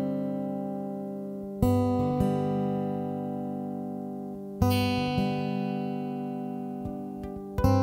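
Background music: an acoustic guitar strumming slow chords, one about every three seconds, each left to ring and fade.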